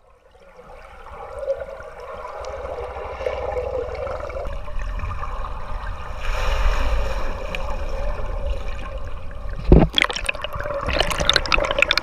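Swimming-pool water heard underwater through a submerged waterproof action camera: a steady muffled wash of moving water and bubbling. A single sharp knock comes about ten seconds in, and a cluster of clicks and splashes near the end.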